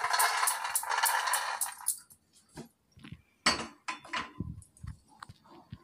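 Roasted peanuts poured from a pan onto a steel plate: a dense rattling patter for about two seconds, then a few scattered clinks and knocks.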